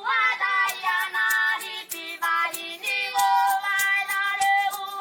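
Background music: a song with a high sung melody moving in steps over a light, ticking beat.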